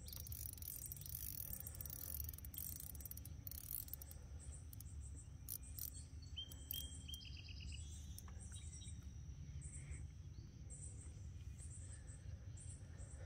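Faint insects chirping in a steady, evenly repeating high pulse over a low rumble, with a short run of rapid high ticks a little past halfway.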